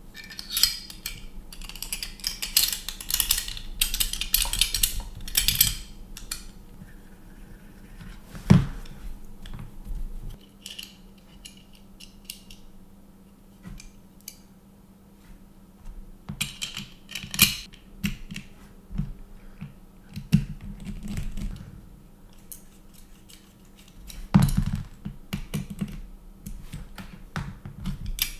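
Handling a Gen4 Glock airsoft pistol's parts: irregular clicks and rattles of small hard pieces, in clusters with quieter gaps between them.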